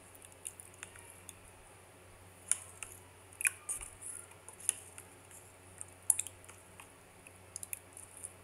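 A plastic spoon stirring cubes of gulaman jelly through a thick creamy mixture in a plastic tub: scattered wet squishes and sharp clicks at irregular intervals.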